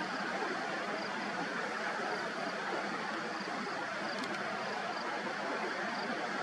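Steady rushing noise of sea waves washing on a rocky shore, with faint high chirps recurring about once a second.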